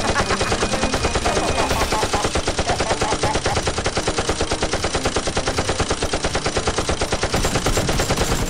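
Rapid, unbroken automatic gunfire, about ten shots a second: a dubbed machine-gun sound effect laid over toy foam-dart blasters being fired.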